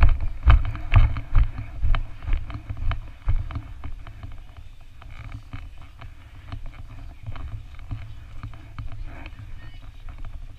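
A runner's footsteps jolting a body-worn action camera, thudding about twice a second for the first three seconds or so. After that come softer rustling and scattered knocks as the runner climbs a rope cargo net.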